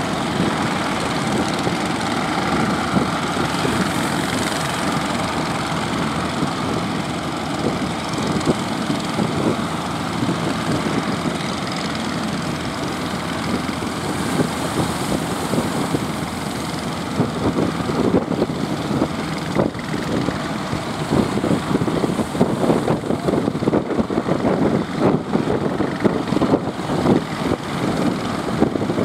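Fishing boat's engine running steadily at sea. In the second half, short irregular rushes come over it.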